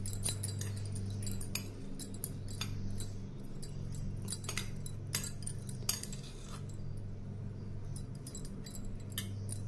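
Steel spoon clinking and scraping against a stainless steel bowl while stirring chopped green chillies in lemon juice, in irregular clinks over a steady low hum.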